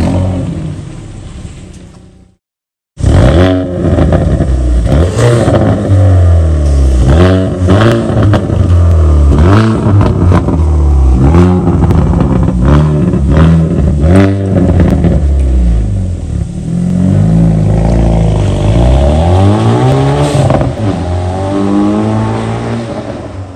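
Hyundai i30 N's turbocharged four-cylinder revved again and again through its modified exhaust, the revs climbing and falling back repeatedly, with sharp cracks between some of the revs. The revving starts about three seconds in, after a brief dropout.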